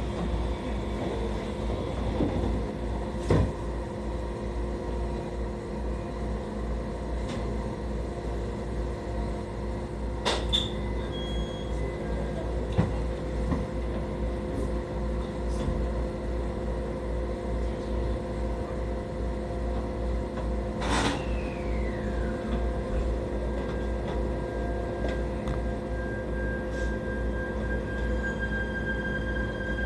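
Local train reversing slowly at a switchback: a steady hum from the train with a few sharp clanks, the loudest about ten and twenty-one seconds in. The second is followed by a falling tone, and a steady whine sets in about twenty-four seconds in.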